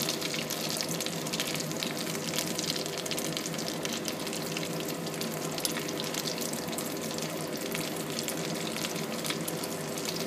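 Potato balls deep-frying in a pot of hot oil, giving a steady sizzle thick with fine crackling.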